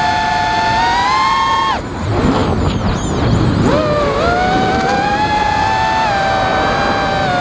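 Armattan Chameleon FPV quadcopter's brushless motors whining steadily in flight. About two seconds in the whine cuts off suddenly as the throttle drops, breaks up into a rough fluttering with quick pitch swoops for about two seconds, then the motors spool back up and settle into a steady whine.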